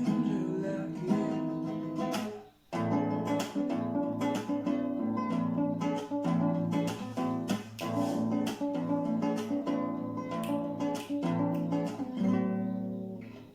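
Instrumental song outro on acoustic guitar, plucked and strummed, with a brief break about two and a half seconds in and fading near the end.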